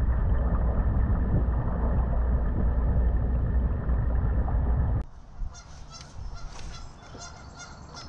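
Loud wind rumble and water rush as a fishing kayak pushes through choppy water. About five seconds in this cuts off abruptly to much quieter calm water, with geese honking repeatedly.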